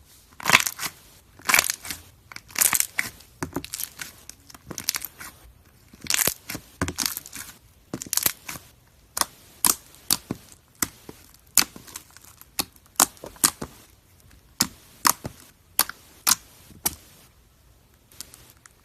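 Slime being squished and pulled against a racket, crackling and popping in quick, irregular bursts that stop shortly before the end.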